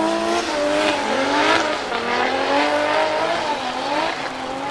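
2JZ straight-six engine of a single-turbo Toyota GT86 drift car revving up and down repeatedly while the car drifts, its pitch rising and falling several times.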